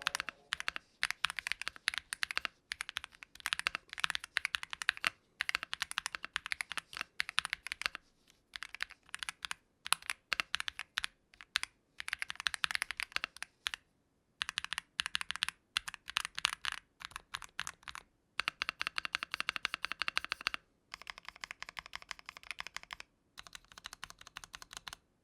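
Akko SPR67 mechanical keyboard with Akko V3 Cream Yellow linear switches and GMK keycaps being typed on: runs of fast keystrokes, a few seconds each, broken by short pauses.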